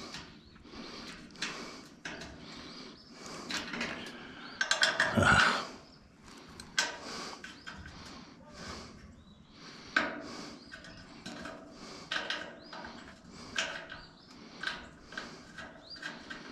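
Short metal clicks and taps of a nut and hand tool being worked onto corroded threaded studs, with one louder clunk about five seconds in.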